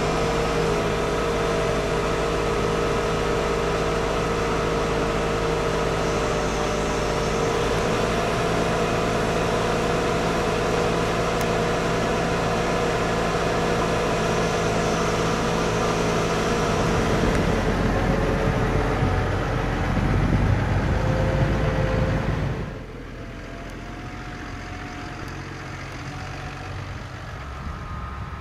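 Case IH MX135 tractor engine running steadily under load, heard from inside the cab while it pulls a potato planter, growing heavier in the low end shortly before the end. About 22 seconds in, the sound cuts to a quieter outdoor recording of a Case IH Puma tractor working the field with a harrow, with wind on the microphone.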